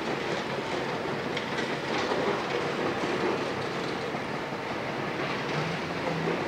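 A train running past on the tracks, a steady rumble with its wheels clacking over the rail joints.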